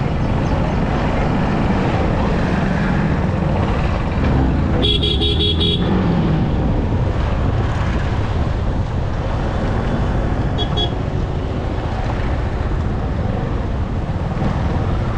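Steady wind and engine noise of a motorcycle riding through traffic. A vehicle horn honks for about a second about five seconds in, and a shorter, fainter honk comes near eleven seconds.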